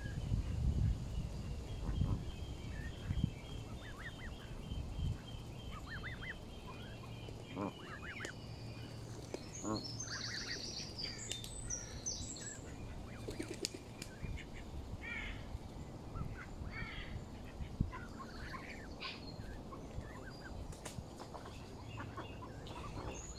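Canada goose goslings peeping in short, repeated high calls while they feed, with a rapid high trill from another bird about ten seconds in. A low rumble sits under the first couple of seconds.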